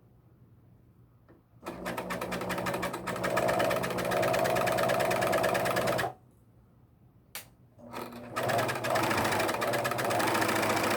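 Husqvarna Viking Huskylock 910 serger running at speed in two spells. It starts about a second and a half in and runs for about four seconds, then stops. After a single click it starts again near the end.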